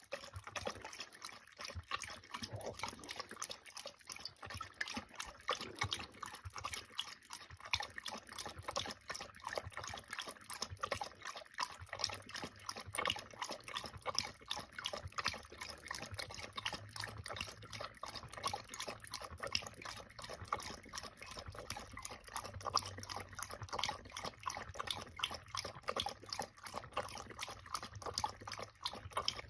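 A dog lapping water from a stainless steel bowl, a steady run of quick wet laps and splashes against the metal.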